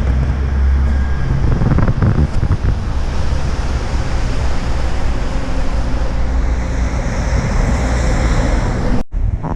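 Train pulling out of the station: a loud, steady low rumble with a rush of air over it. A hiss grows stronger in the last few seconds, and the sound cuts off suddenly near the end.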